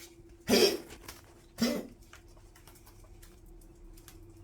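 An old poodle coughing twice, about a second apart, in short harsh bursts. A faint steady hum runs underneath.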